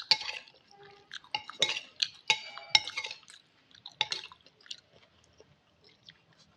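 Eating utensil clinking against a bowl of instant noodle soup, with liquid sounds of broth being stirred and scooped. The clinks come in a quick run over the first four seconds or so, some ringing briefly, then it goes quieter.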